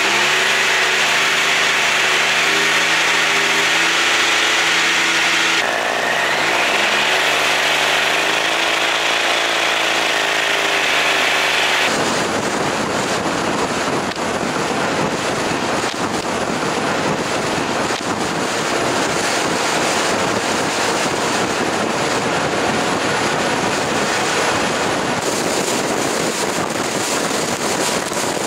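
Motorcycle engine held at a steady 3500 rpm, one even set of engine tones, with the pitch dipping and climbing back about six seconds in. About twelve seconds in this gives way to riding at road speed: a dense, steady rush of wind and road noise on a bike-mounted camera's microphone, which changes character again near the end.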